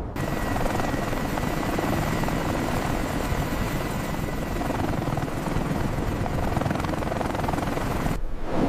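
Helicopter running steadily: rotor and turbine noise with a thin high whine. It cuts off abruptly near the end.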